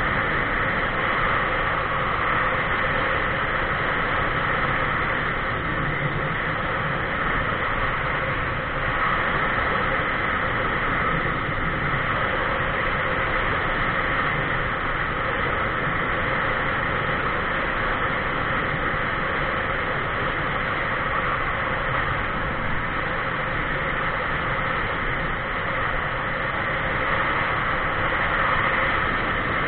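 Steady wind and road noise from a camera mounted on a vehicle moving along a paved highway, an even rushing with a low rumble underneath.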